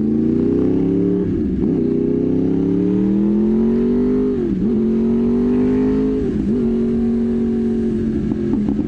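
Sport motorcycle's inline-four engine accelerating hard through the gears: three rising pulls, each cut by a quick upshift, then holding a steady speed, with exhaust pops near the end.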